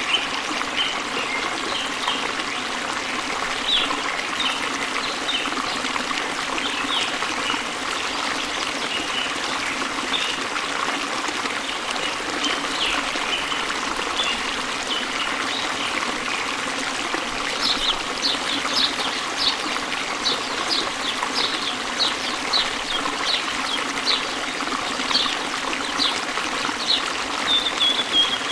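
Running water flowing steadily, with a small bird chirping over it. The short, sharp chirps come thicker and higher from a little past halfway.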